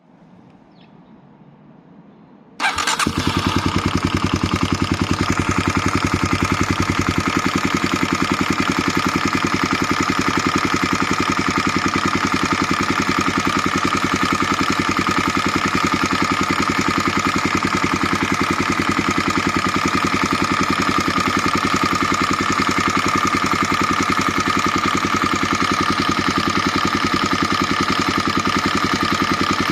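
Suzuki 250SB (Kawasaki D-Tracker) single-cylinder engine starting about two and a half seconds in, then idling steadily with a metallic ticking clatter. The noise comes from a slack cam chain: adjusting the cam chain tensioner made it go away.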